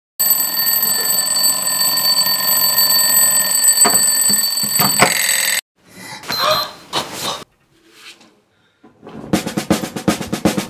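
Alarm clock ringing steadily for about five seconds, then cutting off abruptly. After a short, quieter stretch, a fast drum beat starts near the end.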